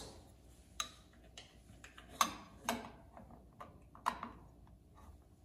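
Light scattered clicks and taps as the cover plate of a garage heater's wiring junction box is handled and set over the box, about seven in all, the loudest a little over two seconds in.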